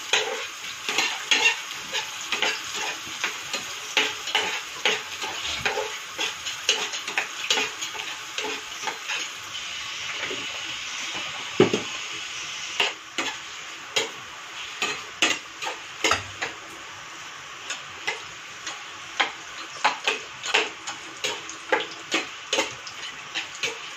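Wheat-flour pua fritters deep-frying in hot oil in an iron kadhai: a steady sizzle, with frequent sharp clicks and scrapes of a perforated steel skimmer against the pan.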